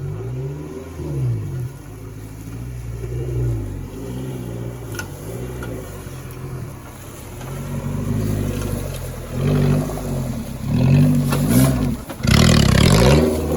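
Off-road 4x4's engine revving up and down again and again as it works through the course, the revs getting louder and more frequent in the second half, with a loud rush of noise about a second before the end.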